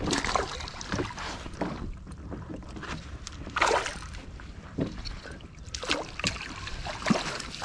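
Several short splashes at the water's surface as a hooked perch thrashes while being brought alongside an inflatable paddle board.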